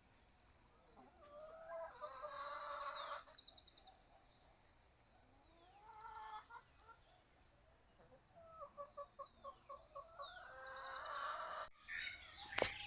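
Domestic chickens calling: a long call a little over a second in, a shorter one around six seconds, then a run of quick clucks that swells into another long call. Small birds chirp faintly in between, and a sharp knock sounds near the end.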